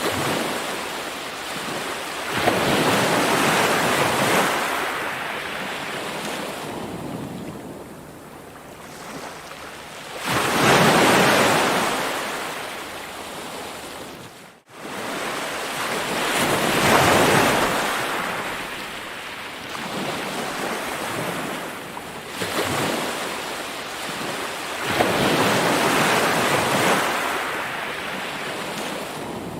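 Ocean waves breaking and washing up, the surf swelling and easing every five or six seconds. A brief gap in the sound comes about halfway through.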